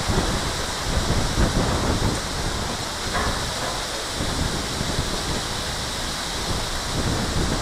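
Strong storm wind blowing, buffeting the microphone with a gusty low rumble over a steady rushing hiss.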